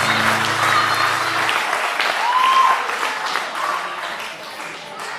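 Audience applauding with a few cheers, with a low steady hum in the first second and a half; the applause fades away near the end.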